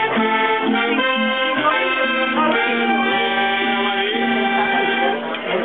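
Button accordion playing a tune in steady reedy chords and melody, with an acoustic guitar strumming along. The music dips briefly about five seconds in, between phrases.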